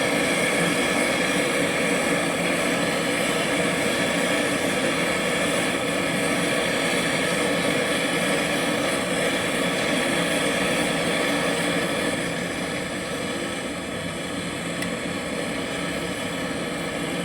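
Gas brazing torch flame hissing steadily while a fridge's refrigerant pipe joint is brazed, easing off slightly about twelve seconds in.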